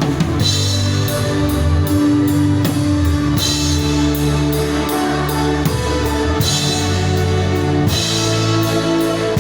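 Live band playing: a drum kit keeping a steady beat under guitar and sustained low bass notes.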